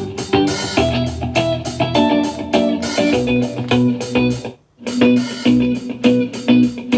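Instrumental hip-hop beat with plucked guitar and bass played loud through a Tribit Stormbox portable Bluetooth speaker. It drops out for a moment about four and a half seconds in, then the beat comes back.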